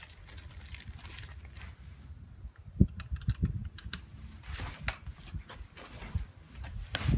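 A string of separate clicks and knocks, like a single-shot rifle's action being handled and loaded, with one sharper, louder thump nearly three seconds in.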